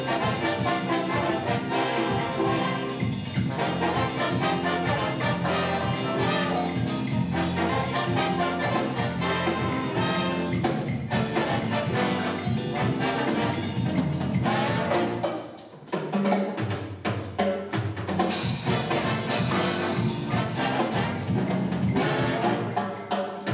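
Jazz big band playing live: saxophones, trumpets and trombones over drums and percussion. The band drops out briefly about two-thirds of the way through, then comes back in.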